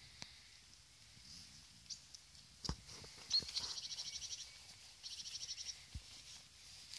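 A small songbird singing two rapid high trills, each about a second long, one starting with a sharp single note. Two low thumps are heard, one before the first trill and one after the second.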